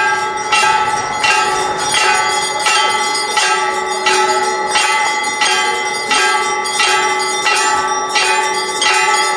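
A large temple bell struck over and over at a steady pace, about one stroke every three-quarters of a second, each stroke ringing on into the next.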